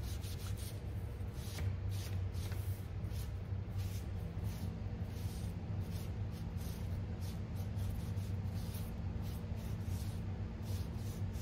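Soft, irregular brushing and dabbing strokes as white paint is worked onto a small wooden house cutout, over a steady low hum.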